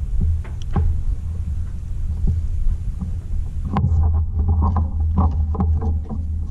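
Steady low throbbing hum with scattered light clicks and knocks from handling and tools.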